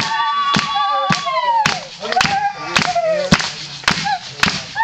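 Traditional Zulu song: several voices singing over a steady beat of hand claps and a drum, just under two beats a second.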